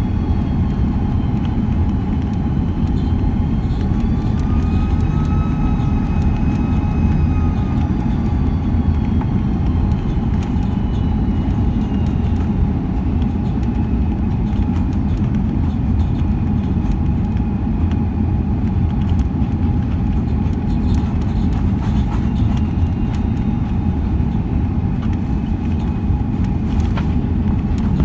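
Airbus A330 jet engines and airflow heard from inside the cabin: a steady low roar with a constant hum, and faint whining tones that glide slowly up and down as the engines spool.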